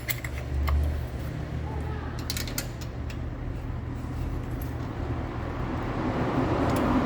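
A few light metallic clicks of hand tools on a valve adjusting screw and feeler gauge during valve-clearance adjustment on a 1.4 8V engine. They sound over a steady low hum, and a broad rumble swells near the end.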